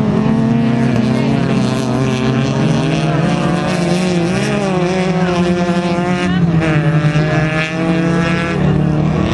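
Several autocross race car engines running hard at once, their overlapping notes rising and falling in pitch as the cars accelerate and lift around the track. One engine comes through higher and louder about six and a half seconds in.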